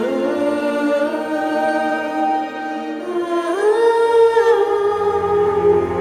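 Background music of long held notes, stepping up in pitch about halfway through, with low bass coming in near the end.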